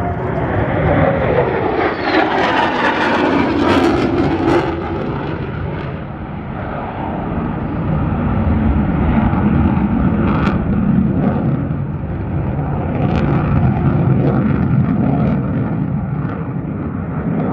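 Lockheed Martin F-35A Lightning II's Pratt & Whitney F135 turbofan running loud in a high-speed display pass: a deep jet rumble, with a whine that falls in pitch over the first few seconds and a few sharp crackles.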